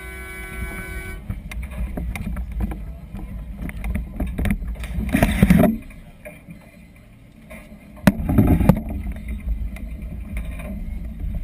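Steady low rumble of wind buffeting an outdoor camera microphone over open water, with two louder noisy gusts about five and eight seconds in. A short steady tone sounds in the first second.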